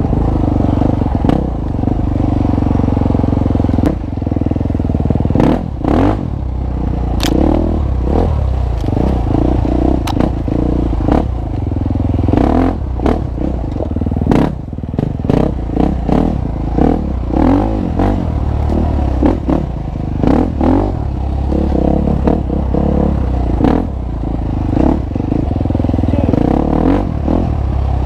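KTM dirt bike engine running and revving up and down as it is ridden over rough cross-country trail. Frequent clattering knocks and rattles from the bike run through it.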